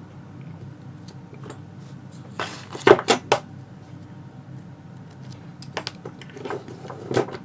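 Metal clicks and knocks of a steel padlock and tools being handled and set down, with a cluster of sharp clunks about three seconds in and a few more near the end.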